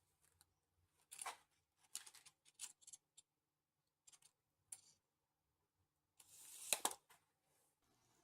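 Light handling noises: a few short scratchy scrapes and clicks, then a longer scrape that builds up and ends in a sharp click about seven seconds in.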